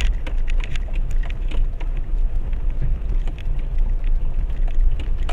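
Renault Duster driving on a rough mountain dirt road, heard from inside the cabin: a steady low rumble with scattered clicks and knocks.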